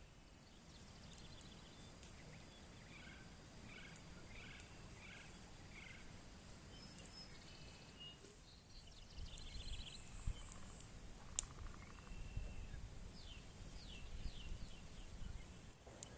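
Forest ambience with birds calling: a run of about five short, evenly spaced calls, then scattered high chirps and clicks. A low rumble comes in about halfway through.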